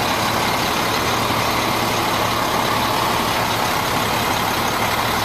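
The International 4300's DT466 diesel engine idling steadily.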